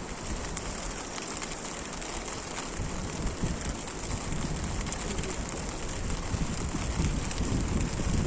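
Steady rain falling, with many fine drops pattering on a surface. A low rumble underneath grows stronger from about three seconds in.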